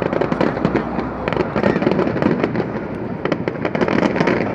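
Aerial fireworks display going off: a dense, continuous run of rapid crackling pops, with no single big bang standing out.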